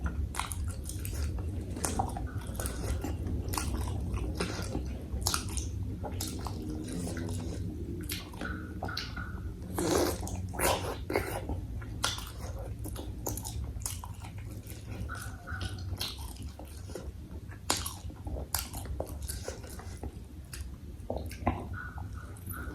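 Close-miked mouth sounds of someone eating bakso, meatballs in spicy soup: a steady run of chewing with many short wet smacks and clicks, a few louder ones about ten seconds in. A steady low hum runs underneath.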